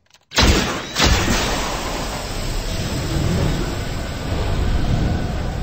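Two sudden bangs about half a second apart, then a loud, steady rushing hiss with a low rumble as thick smoke billows out.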